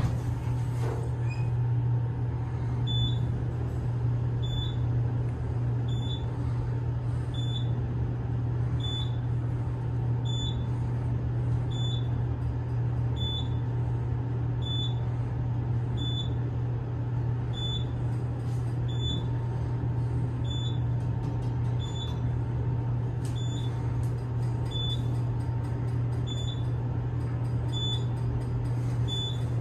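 Otis elevator car travelling down, with a steady low hum of the ride. A short high beep repeats at a fairly even pace, about once for each floor passed.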